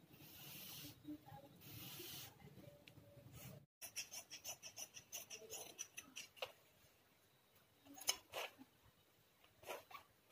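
Tailor's chalk scratching across cloth in two long strokes, then large tailor's shears snipping through folded fabric in a quick run of cuts, followed by a few single clicks near the end. Faint throughout.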